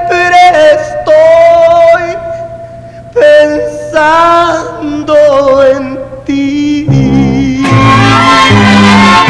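Male ranchera singer holding long, high, sustained notes over light accompaniment, in several phrases. About seven seconds in, a full orchestra with brass comes in loudly.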